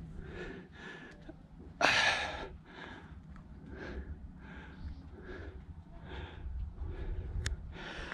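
A person breathing hard close to the microphone: quick breaths about two a second, with one much louder gasping breath about two seconds in, over a steady low rumble.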